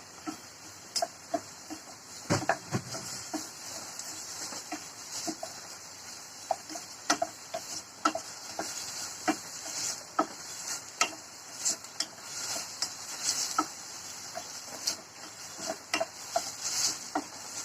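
Onion frying in cooking oil in a pan, a steady sizzle, with irregular clicks and scrapes of a utensil stirring it.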